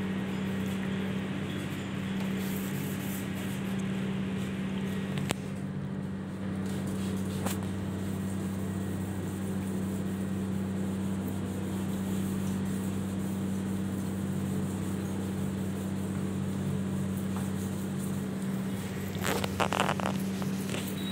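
A steady electric hum with a hiss underneath, broken by a couple of sharp clicks and a short burst of rattling near the end.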